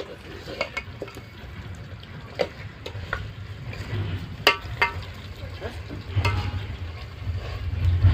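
A spoon stirring food frying in a pan, with a dozen or so short clinks and knocks of metal on the pan over a low steady rumble.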